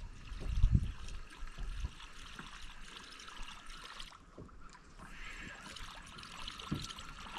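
Water lapping and trickling against a fishing boat's hull, with a few low thumps in the first second.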